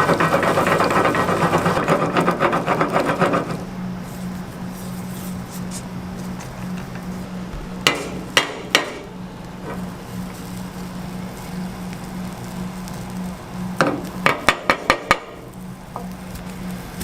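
Cooking utensils knocking and clattering on a cooking surface: a fast run of rattling and scraping in the first few seconds, three sharp knocks about eight seconds in, and a quick run of about six knocks near the end, over a steady low hum.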